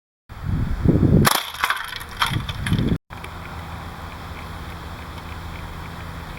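Rumbling handling noise with a few sharp cracks between about one and two and a half seconds in, typical of a KWA M11 gas blowback airsoft SMG firing single shots. After an abrupt cut about three seconds in, a steady low hum with faint ticks.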